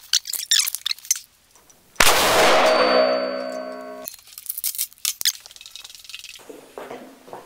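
A single 7.62x54R machine-gun shot striking a 6 mm Hardox steel armour plate, which rings with a long metallic ring of several tones that fades and then stops suddenly about two seconds later. Short clicks of the gun being handled come before and after the shot, and footsteps near the end.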